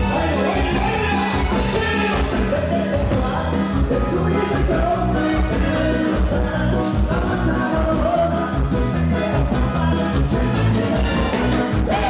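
Loud Latin dance music with a steady, heavy bass beat and a melody over it.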